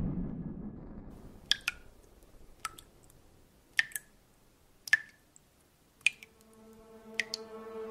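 Water-drop sound effects: sharp single drips plinking about once a second, some in quick pairs, each with a short bright tail. A whoosh fades out at the start, and a held music chord comes in about six seconds in.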